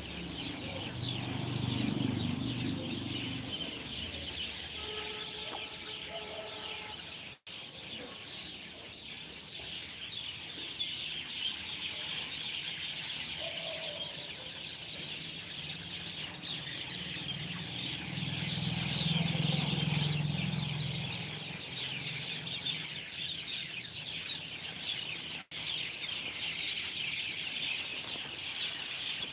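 Many birds chirping at once in a dense, continuous chatter, with a few lower calls standing out now and then. The sound cuts out for an instant twice.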